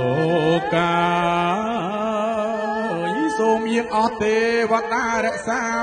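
Khmer phleng arak spirit-ceremony music: a chanted melody of long, wavering held notes that slide between pitches, over steady held tones.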